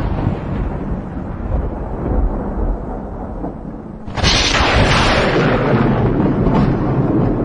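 Storm wind from a tornado buffeting the microphone with a loud, rushing roar. It eases off for a few seconds, then surges suddenly in a strong gust about four seconds in.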